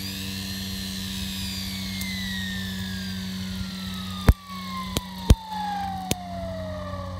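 Tow winch under full line tension: a steady engine hum, with a high whine that starts suddenly and falls slowly in pitch throughout. Several sharp knocks come in the second half.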